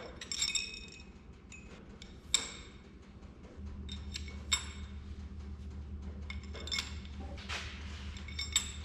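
Steel pushrods being dropped one at a time through a six-cylinder engine's cylinder head onto the lifters: about five sharp metallic clinks, each with a brief ring. A low steady hum starts a few seconds in.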